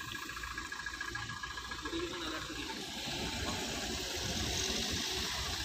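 Vehicle engines idling under a steady outdoor hiss, with faint voices in the background.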